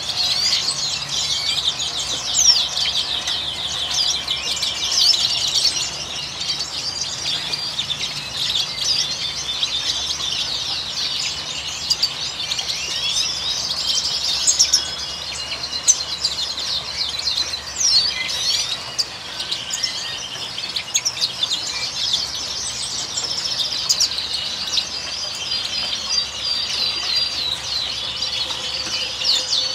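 A chorus of many small caged birds, canaries among them, chirping and twittering continuously in a dense mix of quick high chirps and trills.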